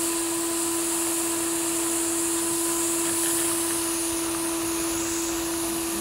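Vacuum cleaner running steadily as its hose sucks moss off roof tiles: a constant motor hum over rushing air.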